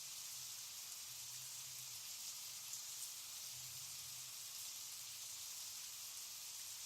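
Faint steady high-pitched hiss, like light rain or static, with a faint low hum beneath it that swells and fades a few times.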